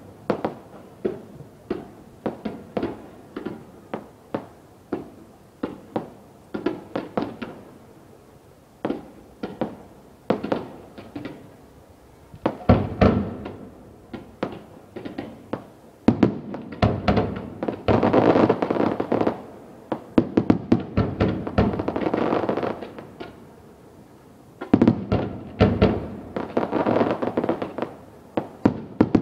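Fireworks display: shell bursts going off about two bangs a second, then from about sixteen seconds in a dense barrage of rapid, overlapping bangs. After a short lull near twenty-four seconds a second barrage starts.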